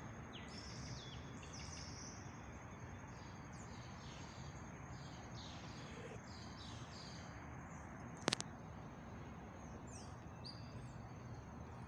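Birds chirping in short, repeated falling calls in the trees over a steady hiss of outdoor background noise, with a faint steady high tone under them. A single sharp click a little after eight seconds in.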